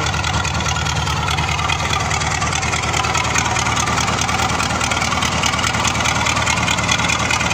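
MTZ-50 Super tractor's four-cylinder D-50 diesel engine running steadily at idle with its muffler removed. The open exhaust gives a rapid, even beat of pulses.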